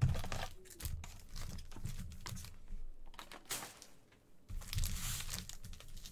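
Foil Bowman baseball card packs crinkling and rustling in irregular bursts as they are handled and stacked by hand.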